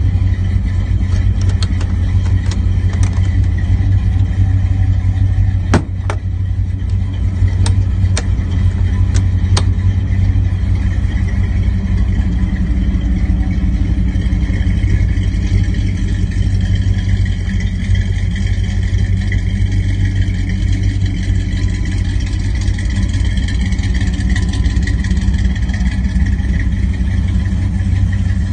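Old pickup truck's engine idling steadily with a low rumble. A few sharp clicks and a knock come in the first ten seconds.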